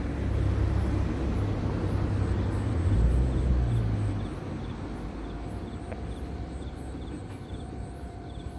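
Low diesel rumble of a DRC diesel railcar train moving away after passing. It is loudest for the first four seconds, then fades steadily into the distance. Faint regular high ticking sits over it.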